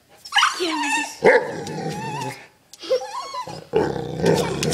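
Great Pyrenees giving about four drawn-out barking, growling calls that waver in pitch, with short breaks between them.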